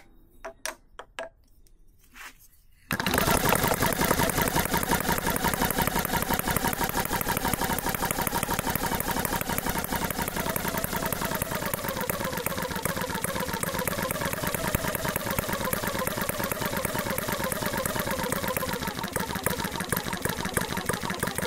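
Retrol HM01 four-stroke model petrol engine running with a fast, even mechanical beat. It comes in abruptly about three seconds in, after a near-quiet stretch with a few faint clicks.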